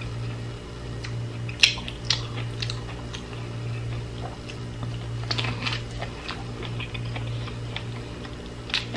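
Closed-mouth chewing of a mouthful of grilled corn kernels, with a few short, sharp wet clicks and smacks, over a steady low hum.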